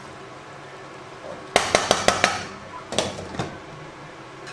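Wooden spoon and glass saucepan lid knocking against a saucepan. A quick run of about five sharp knocks comes about a second and a half in, then two or three more about a second later as the lid is set on the pan.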